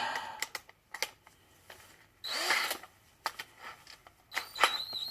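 A power drill fitted with a pen barrel trimmer run in short spurts, with handling clicks and knocks between them; near the end it gives a brief high steady whine.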